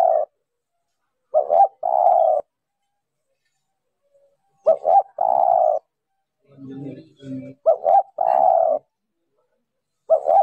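Spotted dove cooing, its call used as a lure: a phrase of two short quick coos followed by a longer held coo, repeated about every three seconds. Softer, lower notes come between two of the phrases, and a new phrase starts near the end.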